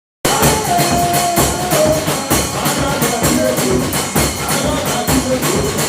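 Upbeat music with a fast, steady drum and percussion beat under a melody line, starting abruptly a moment in.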